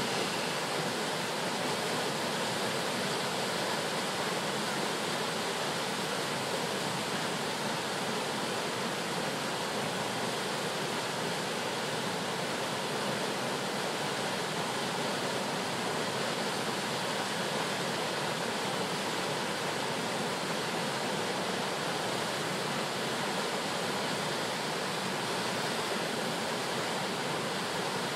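Copper Falls, a waterfall plunging into a rocky gorge, with a steady, unbroken rush of falling water.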